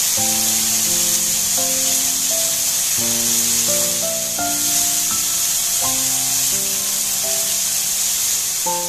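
Blended red chili paste sizzling steadily as it fries in oil in a frying pan, a constant high hiss. Background music with a simple melody of held notes plays over it.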